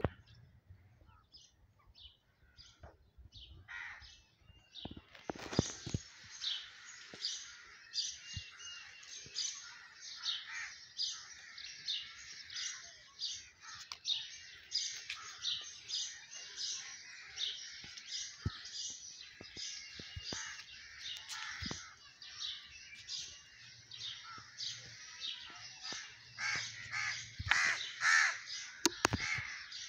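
Many birds calling at once: a dense, unbroken chorus of short chattering notes sets in about five seconds in, with louder calls near the end.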